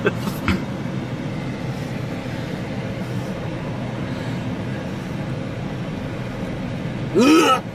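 Steady low rumble inside the cabin of a Chevrolet pickup truck, with a short click about half a second in. Near the end a loud voice breaks in, its pitch rising and falling.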